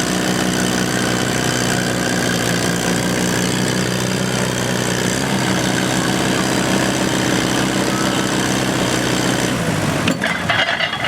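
Farm tractor engine running steadily, its note shifting slightly about five seconds in and falling away near the end.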